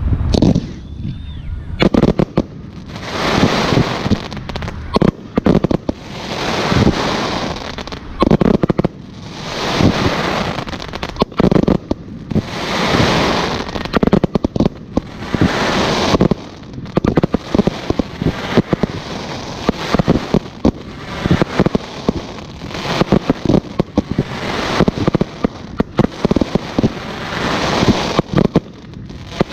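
Fireworks display: aerial shells bursting in quick succession, loud sharp booms every second or two with crackling, hissing swells between them.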